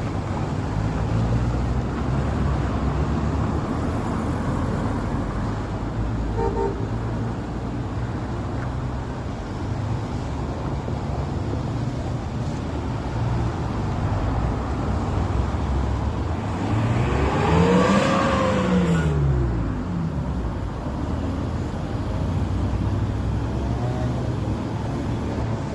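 Steady road-traffic rumble. A short car-horn toot sounds about six seconds in, and a vehicle passes with its pitch rising and then falling about eighteen seconds in, the loudest moment.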